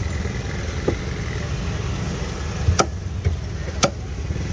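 Heavy cleaver chopping tuna on a wooden log block: a few sharp chops, the two loudest about a second apart near the end. Under them runs the steady low hum of an idling vehicle engine.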